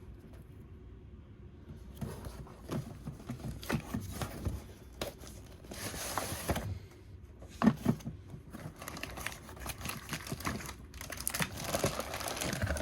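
Toy packaging opened by hand: plastic and cardboard crinkling and tearing, with scattered knocks and clicks, starting about two seconds in.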